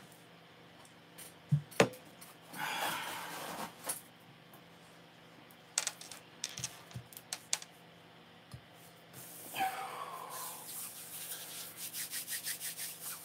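Hands rubbing briskly together near the end, a rasping swish of about five strokes a second. Earlier come two sharp knocks about a second and a half in, the loudest sounds here, then scattered clicks and scraping handling noises.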